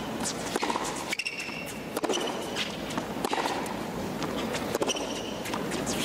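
Tennis rally on a hard court: rackets striking the ball in turn, a sharp hit every second or so, with short high squeaks between the hits.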